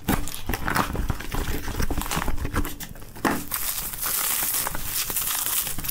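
Packing tape being pulled off a cardboard box, with rustling and scraping of the cardboard. From about four seconds in, bubble wrap crinkles and crackles as the package inside is unwrapped.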